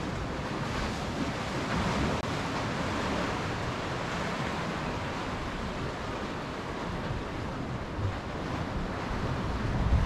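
Sea waves washing in among the concrete tetrapods of a breakwater, a steady rush of surf, with wind buffeting the microphone in low gusts, the strongest right at the end.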